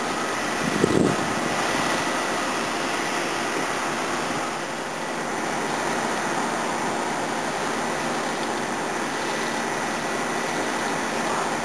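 Steady rush of distant road traffic and construction activity, heard from high above, with a brief low thump about a second in.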